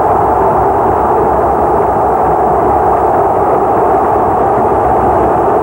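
Large stadium crowd cheering in one loud, steady, unbroken wall of noise.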